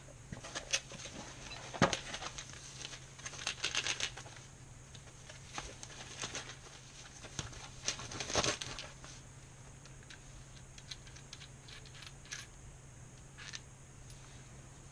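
Small parts and their packaging being handled: on-and-off crinkling and rustling with light clicks and knocks, busiest about three to four seconds in and again around eight seconds.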